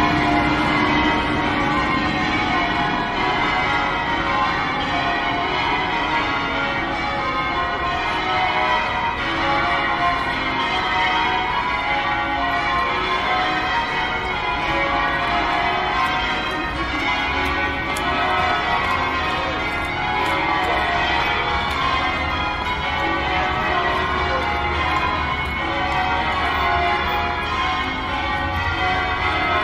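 Cathedral bells ringing close by, many bells sounding continuously and overlapping one another. Light traffic passes low underneath, louder in the second half.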